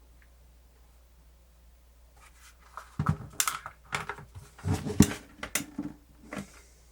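Plastic transport buttons on a cassette player being pressed and released: a quick run of sharp clicks and light knocks, starting about three seconds in. The buttons now latch, after being realigned so they no longer pop back out.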